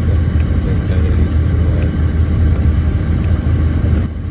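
Off-highway logging truck's diesel engine running steadily with a deep rumble, heard from inside the cab while driving; the sound drops a little just before the end.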